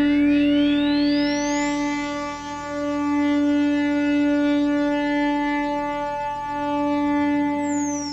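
Electronic synthesizer tones from a Krell-style generative patch: a held, buzzy note rich in overtones, with a high pitch glide sweeping up over the first two seconds and another sweeping down near the end.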